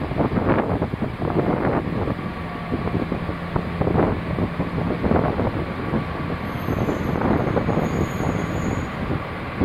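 JR DD51 diesel-hydraulic locomotive running light at low speed, its diesel engines running steadily as it rolls along the track. A faint high squeal joins about two-thirds of the way through.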